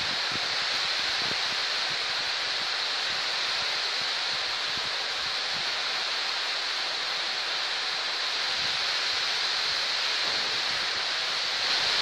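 Heavy rain pouring steadily onto trees and grass, a dense even hiss with no let-up.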